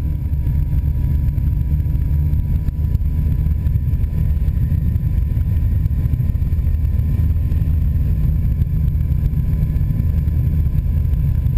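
Steady low drone of a biplane's piston engine and rushing air in level flight, with a faint steady high tone held throughout.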